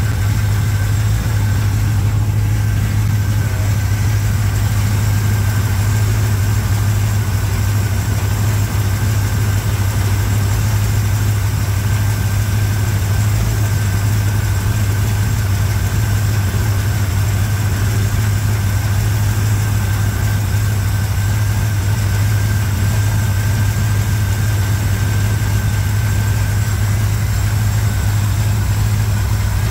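1987 Chevrolet K10's carbureted small-block V8 idling steadily, warming up on its first run after a blown head gasket was replaced.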